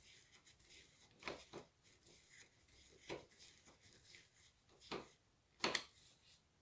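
Faint, scattered clicks and knocks of doorknob hardware and tools being handled, about six in all, unevenly spaced, with the loudest a quick double click near the end.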